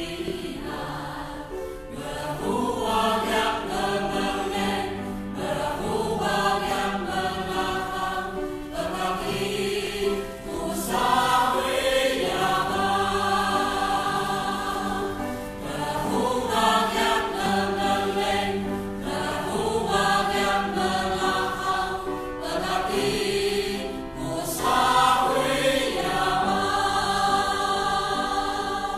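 Church choir singing a hymn in Atayal, in sung phrases of a few seconds each with brief breaks between them.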